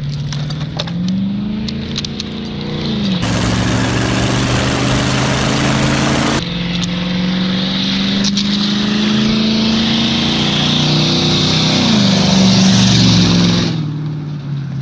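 Car engine accelerating, its pitch climbing and then dropping back as it changes gear, several times over. A loud rush of noise covers it for about three seconds in the middle. The engine sound cuts off abruptly near the end.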